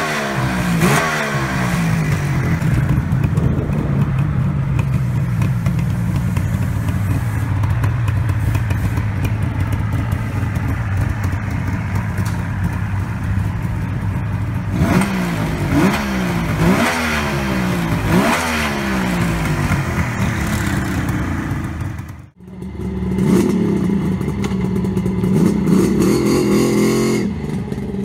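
Suzuki GT750's liquid-cooled 738 cc two-stroke three-cylinder engine idling, with quick throttle blips near the start and four short revs about halfway through, each falling back to idle. After a sudden brief drop-out near the end, the engine runs on steadily again.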